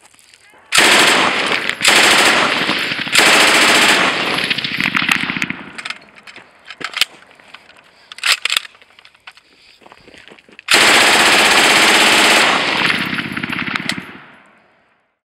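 IWI Negev 5.56×45 mm light machine gun, still soaked and dripping from its water test, firing full-auto. Three bursts of about a second each come close together, then a few short shots, then one longer burst of nearly two seconds. Each burst rings out on the range and fades.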